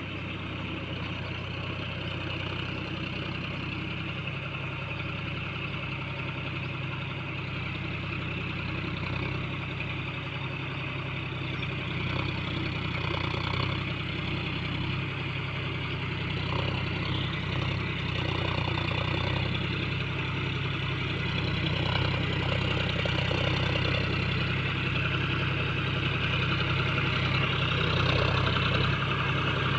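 John Deere tractor's diesel engine running steadily as it tills a wet field, growing louder as the tractor comes closer.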